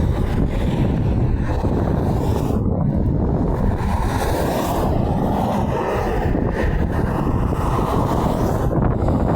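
Steady, loud rumbling roar of wind buffeting the microphone, with no horn sounding.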